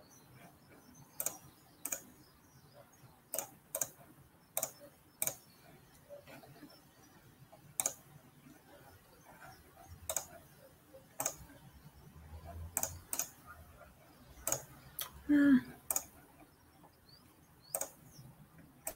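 Irregular clicks of a computer keyboard and mouse, roughly one a second, with one brief, louder low sound about fifteen seconds in.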